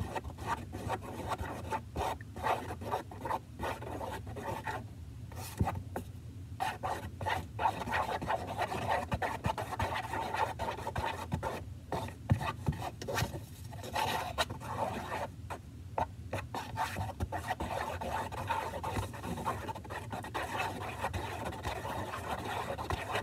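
Wooden stick stirring a thick mix of glue and shaving cream in a plastic tub, scraping and rubbing against the tub's bottom and sides in quick, irregular strokes with a few short pauses.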